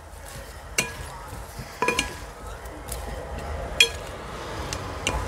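Wooden salad servers tossing salad in a white ceramic bowl, knocking against the bowl several times with short ringing clinks.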